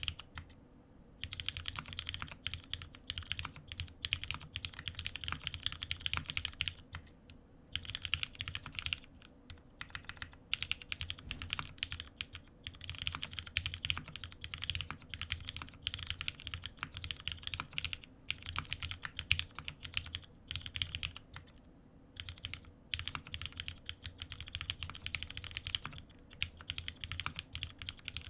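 Typing on a Frog mini mechanical keyboard with Krytox 205g0-lubed Cherry MX Black linear switches in an aluminium plate, no foam, and GMK keycaps. The keystrokes come in quick runs broken by short pauses.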